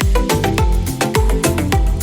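Background music: an upbeat dance track with a deep kick drum about twice a second under short pitched notes and light percussion.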